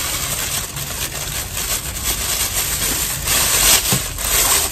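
Thin plastic bag crinkling and rustling as hands handle and unwrap it.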